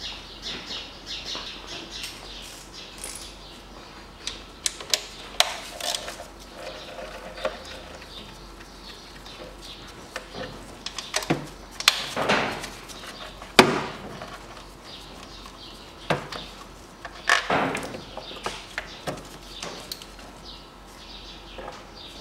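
Scattered clicks, knocks and short scraping noises of a hand tool and plastic air-intake parts being handled in a car's engine bay while a hose clamp is loosened, with two louder scrapes near the middle and about three-quarters of the way through.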